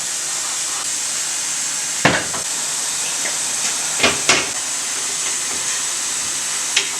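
Pneumatic tyre changer leaking air with a steady hiss while its bead breaker works the tyre off the rim, with four sharp metal clunks: one about two seconds in, two close together around four seconds, one near the end.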